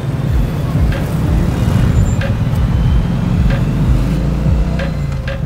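Background music with a deep, sliding bass and a steady beat.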